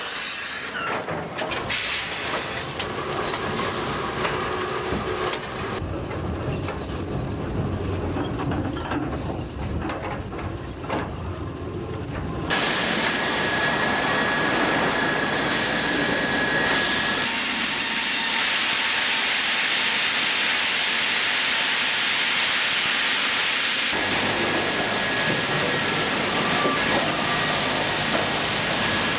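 Wood-processing machinery running with a steady, noisy hiss. The sound changes abruptly about 12 seconds in, again about 17 seconds in, and again about 24 seconds in, as if it were switching between different machines.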